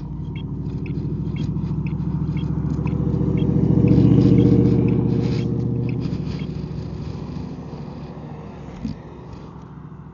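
A car engine running close by, swelling to its loudest about four seconds in and then fading away as it passes. Light regular ticking runs through the first few seconds.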